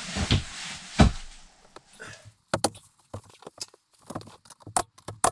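Carpentry work on wood panelling: a steady hiss with a couple of knocks, then about two seconds in a string of sharp, separate clicks and knocks as the boards are handled and fitted.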